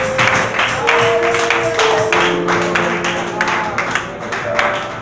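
Gospel church music: sustained chords, with a tambourine shaken on a steady beat.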